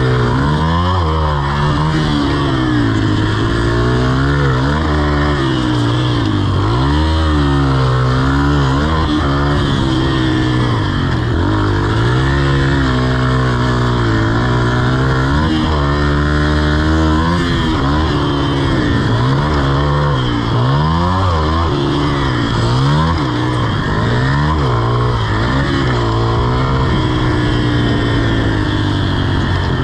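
Yamaha TT-R125's small four-stroke single-cylinder engine revving up and dropping back again and again as the bike is ridden around a dirt track, its pitch rising and falling every second or two.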